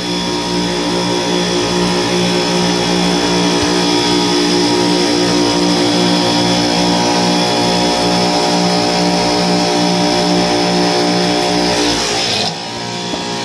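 Supermarket refrigeration rack running: a loud, steady machine hum with a rhythmic throb, typical of the rack's compressors. Near the end the hum drops a little and changes.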